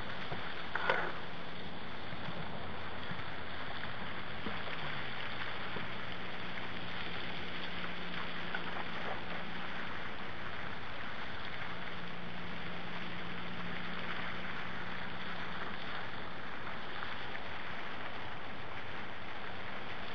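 Steady hissing splash of a pond fountain's spray, with a faint low hum underneath and a short knock about a second in.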